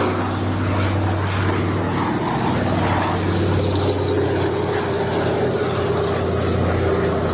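A Consolidated PBY Catalina's twin Pratt & Whitney R-1830 Twin Wasp radial engines running steadily as the flying boat passes overhead, with a loud, even propeller drone.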